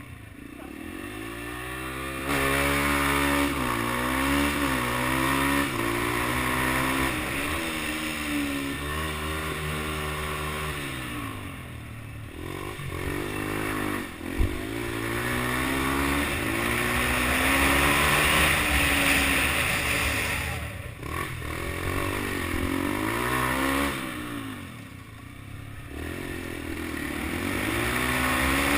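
Yamaha TT-R125 single-cylinder four-stroke dirt bike engine under way, its pitch climbing and dropping again and again as the throttle is opened and closed. A single sharp click comes about fourteen seconds in.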